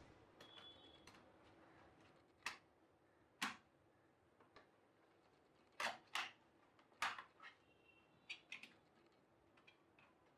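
Scattered small clicks and taps, about eight of them at irregular intervals, some in close pairs, from putting the screws back into a laptop's casing with a screwdriver.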